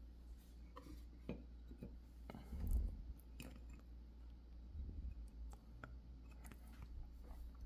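Faint clicks and taps of trading cards and small clear plastic display stands being set upright on a playmat, with a duller knock about two and a half seconds in.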